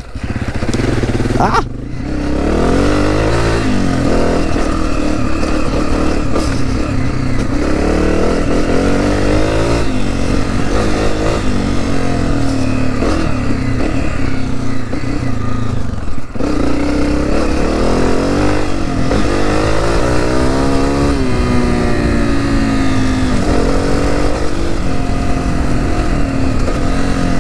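Honda CRF250F's single-cylinder four-stroke engine running under way on a trail ride, its revs rising and falling again and again as the throttle is opened and closed. The engine sound drops briefly twice, about two seconds in and again near the middle.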